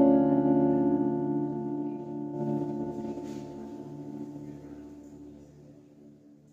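The band's final sustained chord ringing out and slowly fading away, with a slight pulsing in the lower notes.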